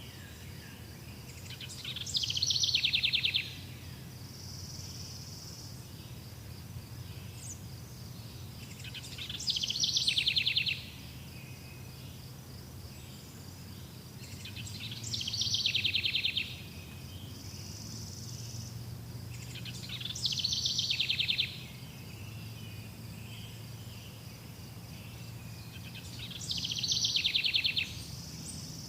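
A songbird repeats the same short song five times, about every six seconds, each phrase ending in a fast trill. Insects keep up a steady high drone underneath.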